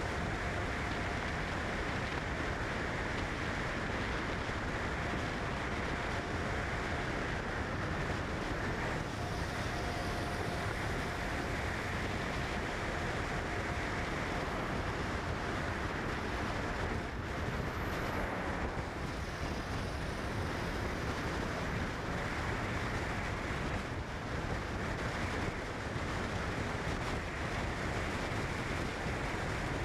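Steady rushing noise at an even level, with a faint thin tone coming and going in the first half.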